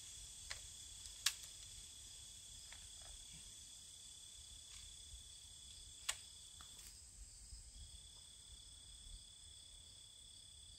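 Insects trilling steadily in high, unbroken tones, with a few faint sharp clicks, the clearest about a second in and about six seconds in.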